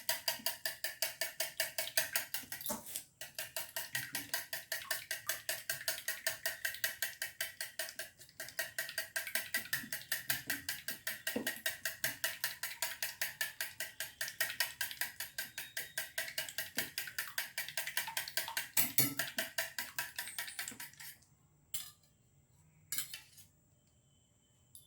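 Two eggs being beaten by hand in a bowl, the utensil tapping the bowl in a quick even rhythm of about five strokes a second, with two short pauses; the beating stops near the end, leaving a few single taps.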